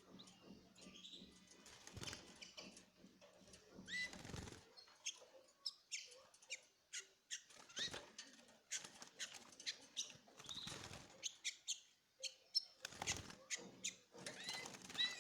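Small cage birds fluttering their wings in many short bursts, with scattered high chirps, as birds squabble after their chicks have hatched.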